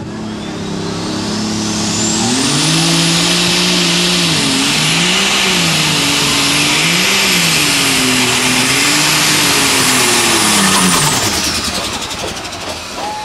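Light Super Stock pulling tractor's turbocharged engine running flat out down the pulling track, a high turbo whine rising over the first two seconds and then holding. The engine note swells and dips several times as it works against the sled, then falls away about eleven seconds in as the pull ends.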